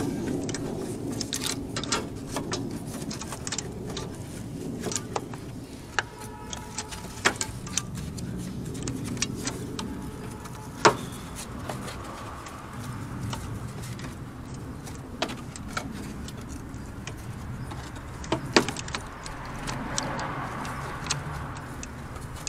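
A plastic engine-bay side cover being fitted into place by hand: scattered clicks, taps and light rattles as it is pushed and seated. The sharpest clicks come a little before halfway and again about four-fifths of the way through, over a steady low hum.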